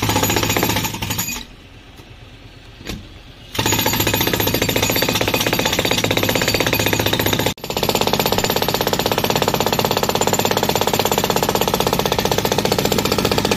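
Jackhammer (power breaker) hammering into a concrete rooftop floor in a rapid, steady stream of blows. It runs briefly, stops for about two seconds, then restarts and keeps running, with one momentary break about halfway through.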